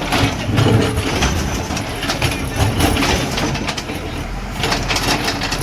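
Diesel engine of a heavy earthmoving machine running steadily, with repeated metallic clanks and rattles.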